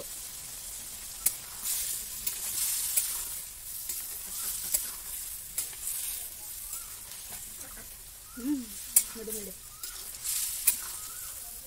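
Pork and potato pieces sizzling as they fry in a metal kadai, stirred with a metal spatula that clicks and scrapes against the pan. The sizzle swells twice, about two seconds in and again near the end.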